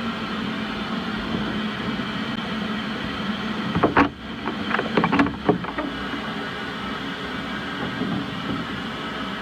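Blast cabinet sandblasting a rusty steel seat panel: a steady hiss of compressed air and abrasive grit. Several sharp knocks sound between about four and five and a half seconds in.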